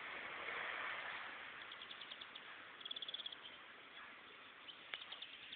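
Akita puppy snuffling with its nose in the soil and grass: soft rustling, then two short runs of quick sniffs, about ten a second, and a few sharp clicks near the end.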